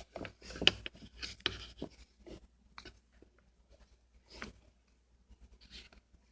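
Irregular soft scrapes and rubs of slime being handled and stirred in its mixing bowl, busier in the first couple of seconds and sparser after.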